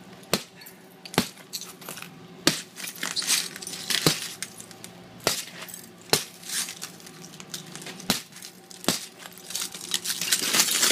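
Claw end of a steel hammer striking a panel of laminated impact-rated window glass, about eight sharp blows with crunching and crackling of the cracked glass between them. The glass is crazed all over but holds together in its frame.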